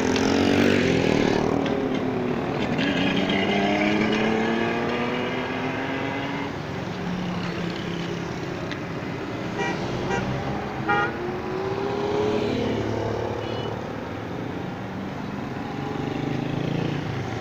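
Street traffic: motorcycle and auto-rickshaw engines passing close by, their pitch rising and falling as each goes past, with a couple of short horn beeps about ten seconds in.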